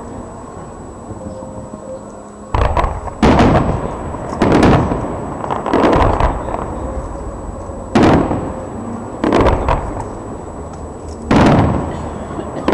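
Aerial firework shells bursting: a series of about seven loud bangs starting about two and a half seconds in, each trailing off in an echoing tail.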